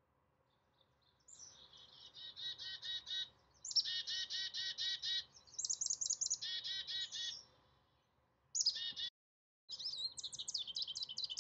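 Black-capped chickadee giving its chick-a-dee call: a couple of high opening notes followed by runs of repeated 'dee' notes, several times over. About ten seconds in, after a brief break, a male American goldfinch sings a rapid, varied twittering song.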